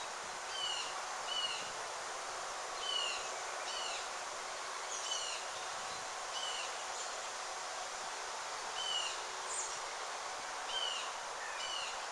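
A bird calling over and over with short, falling chirps, about one every second, over a steady background hiss.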